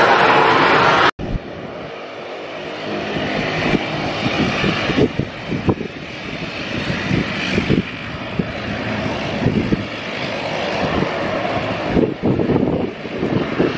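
Airbus A330-300 jet engines at takeoff power for about a second, cut off abruptly. Then a Dash 8 turboprop's engines and propellers running as it taxis, with gusty wind buffeting the microphone.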